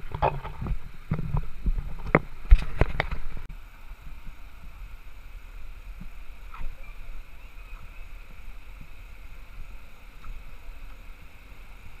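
A creek running over rocks, heard as a steady rush. In the first few seconds, a cluster of loud knocks and rubbing from a handheld camera jostled while its carrier walks over the rocks.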